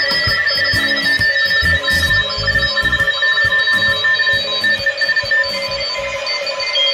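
Several Morse code (CW) signals at different pitches beeping at once from a WWII German Torn.E.b. valve receiver tuned to a crowded 160 m contest band, with no filtering to separate them. Irregular low thumps and crackle run underneath.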